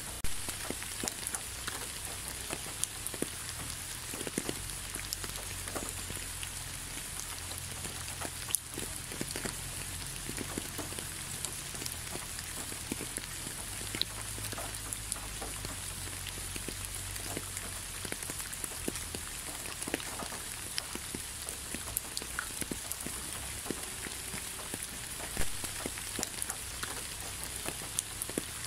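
Steady rainfall: an even hiss of rain with many separate drops ticking on hard surfaces and a low rumble underneath. A few drops land louder, one just after the start and another about 25 seconds in.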